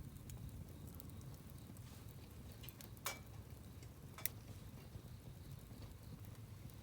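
Wood campfire burning with a low rumble and scattered small crackles, and two sharper pops about three and four seconds in.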